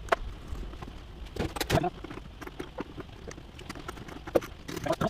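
Irregular clicks and knocks of small hard objects being handled, with a denser cluster about a second and a half in and another near the end.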